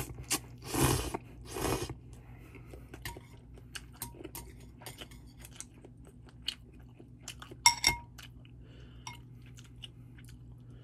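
Ramen noodles slurped in three quick pulls, then chewed with soft, wet clicking. A short clink about eight seconds in.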